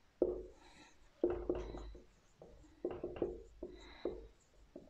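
Marker pen writing on a whiteboard: a run of short squeaky strokes and taps.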